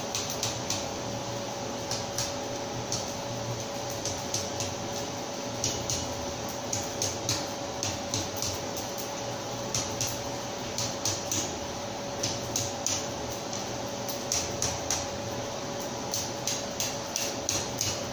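Blacksmith's hammer striking a small red-hot piece of steel on the anvil: light, quick strikes in irregular groups of two to four, over a steady hum.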